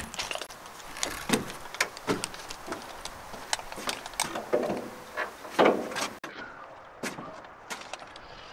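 Scattered knocks, clunks and rattles as someone moves about in a pickup truck's bed and fits a wooden frame piece against the headache rack, with tools on a tool belt jingling.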